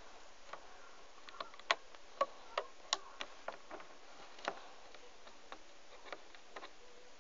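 Small plastic clicks and taps at an uneven pace from rubber loom bands being stretched onto the pegs of a plastic loom, the layer of yellow bands being put on.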